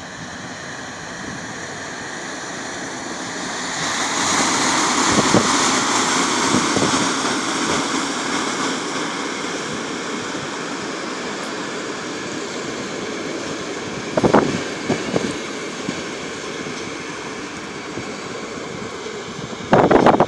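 EU07 electric locomotive and its passenger coaches running past: a steady rushing rumble of steel wheels on rail that swells about four seconds in and then holds as the coaches roll by. A few short loud thumps come near the end.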